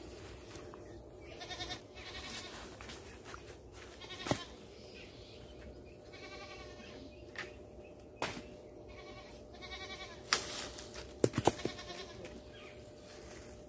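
Goats bleating several times, with a few sharp knocks and cracks as a hooked bamboo pole works among the branches of a hog plum tree; the loudest is a quick run of cracks near the end.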